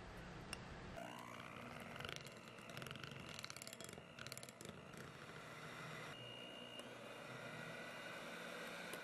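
Electric hand mixer beating coffee buttercream in a glass bowl. The motor whine rises as it speeds up about a second in, then runs steadily while the wire beaters click and rattle against the bowl for a few seconds.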